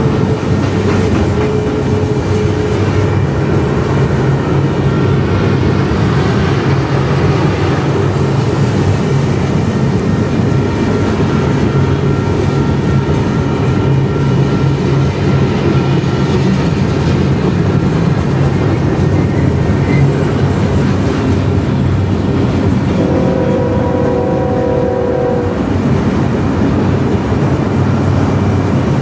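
Diesel freight train running with a steady engine drone under wheel and rail noise. A multi-tone locomotive horn sounds once for about two seconds, about three-quarters of the way through.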